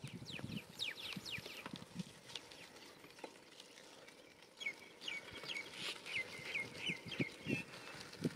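Birds calling: short high downward-sweeping notes in the first second or so, then a run of repeated chirps, about three a second, from about five seconds in. A few low thumps come now and then.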